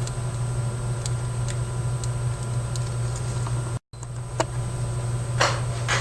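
Faint, sparse clicks and taps from handling a small RC helicopter and its oiler, over a steady low hum. About four seconds in, the sound cuts out completely for a split second, and a few louder handling clicks come near the end.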